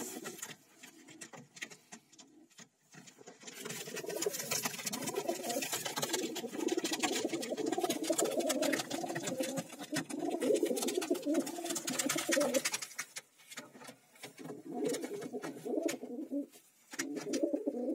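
White fantail pigeons cooing, several voices overlapping in a long continuous bout from about four seconds in until about thirteen seconds, then in shorter bouts toward the end. Light clicks and scuffs are heard among the coos.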